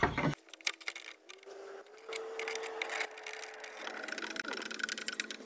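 Faint clicks and light scraping as small metal latch parts are handled and fitted by hand, over a faint steady tone.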